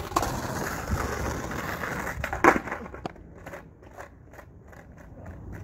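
Skateboard wheels rolling on rough asphalt, then a loud sharp clack about two and a half seconds in as the board hits the ground, with a smaller knock just after; the board ends up upside down, a missed ollie. Lighter, evenly spaced ticks follow.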